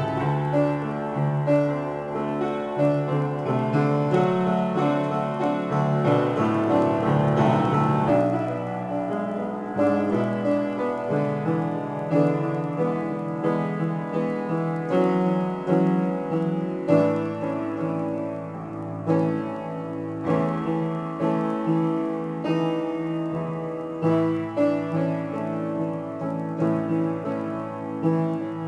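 Solo acoustic piano improvisation: full chords ringing over held bass notes, new chords struck about every second, the bass note shifting every few seconds.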